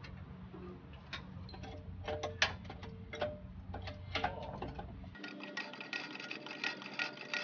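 Metal clanks and knocks of a hydraulic floor jack being set in place under a riding mower's front end, over a low hum. About five seconds in, the hum cuts off and a fast, even ticking takes over.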